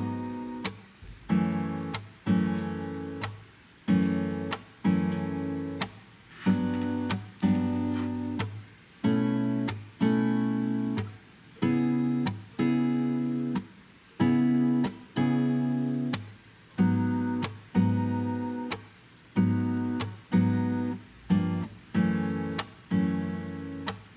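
Background music: slow plucked acoustic guitar notes and chords, each ringing out and fading, about one a second.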